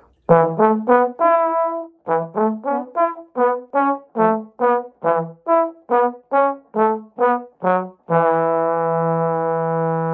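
Two trombones playing a duet in two parts, first in short detached notes about three a second, then settling on one long held chord about eight seconds in.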